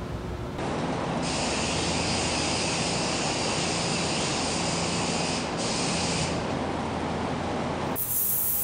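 Air spray gun hissing as it sprays paint, with a steady low hum beneath. The hiss stops for a moment about five and a half seconds in, then resumes until about six seconds in.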